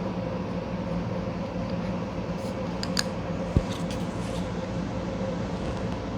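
A steady machine hum, with a few light clicks and one short soft knock about three and a half seconds in.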